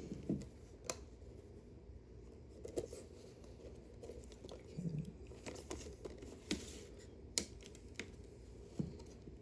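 Plastic Blu-ray case and its paper inserts being handled: scattered irregular clicks and taps with brief crinkling and rustling.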